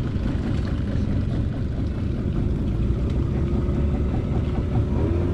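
Small motorboat's engine running steadily at low speed, a continuous low rumble.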